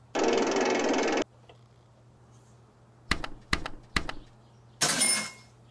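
Tayo toy garage playset playing a short electronic sound effect through its small speaker, lasting about a second, then several plastic clicks as its buttons are pressed, and a brief beeping sound effect near the end.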